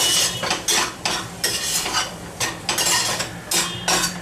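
Spatula scraping and stirring boiled potato cubes around a frying pan, a quick run of strokes at about three a second.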